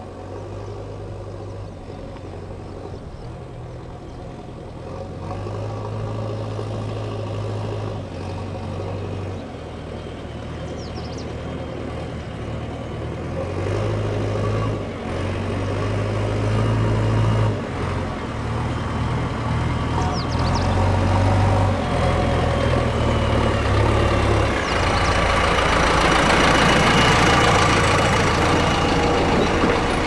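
Diesel engines of a JCB 3DX backhoe loader and a Tata tipper truck driving up at low speed, a low drone that swells and eases in steps. It grows louder as they come closer and is loudest near the end as the truck draws near.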